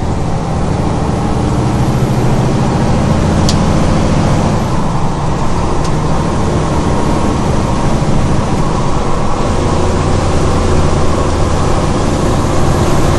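600 hp Cummins diesel of a Kenworth K200 truck running under way, heard from inside the cab while being shifted through an 18-speed Road Ranger gearbox. The engine note drops and changes about a third of the way in and again past the two-thirds mark, with a short sharp click early on.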